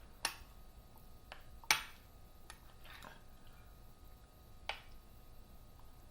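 A few light clicks and taps, with a soft squish, from food and utensils being handled as a taco is built by hand; the sharpest tap comes nearly two seconds in and another near the end.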